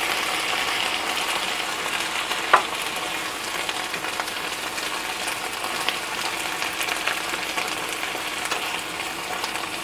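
Eggplant and long beans sizzling steadily in a hot frying pan just after a splash of water, stirred with a spoon. One sharp clink of the spoon against the pan about two and a half seconds in.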